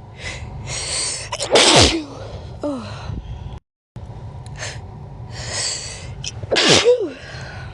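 A person sneezing naturally, twice. Each sneeze starts with a breathy in-breath, breaks into a loud sneeze with a falling voice, and is followed by a short falling voiced sound. The sneezes come about a second and a half in and near the end.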